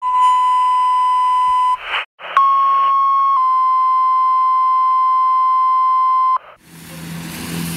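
Radio dispatch alert tones: a steady beep near 1 kHz for under two seconds, a short burst of radio static, then a second, longer steady beep that drops slightly in pitch partway through. Near the end the tones cut off and a rush of street noise with a low engine hum fades in.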